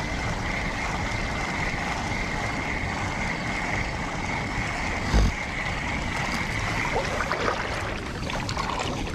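Steady outdoor background noise with a faint steady high tone running through it, and one dull low thump about five seconds in.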